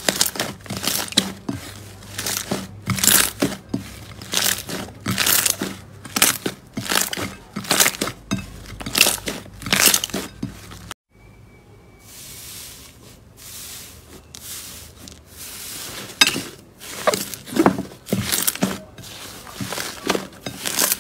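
Slime being squeezed and kneaded by hands in a glass bowl: a quick run of crackling, squishing pops as air pockets in the slime are pressed out. After a brief break near the middle, the squishing starts again more softly before growing louder near the end.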